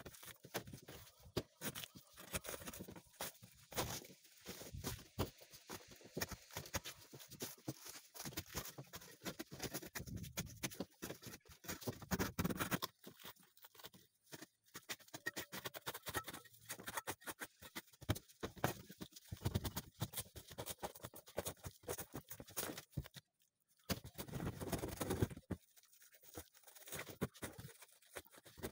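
Old bitumen roofing felt being scraped and torn off a sheet-metal roof by hand with a scraper: quick irregular scratching, crackling and tearing, with a couple of short pauses.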